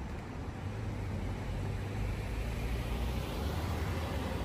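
City road traffic: a steady rumble of cars, with a vehicle passing louder about two to three seconds in.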